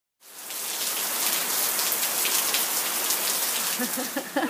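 Heavy tropical rain pouring down, a dense steady patter of drops that fades in just after the start.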